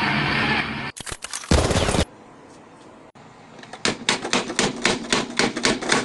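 A rapid, even run of sharp clicks, about five a second, like typewriter keys, starting about four seconds in. Before it, a short cluster of clicks and a brief loud burst come about one to two seconds in.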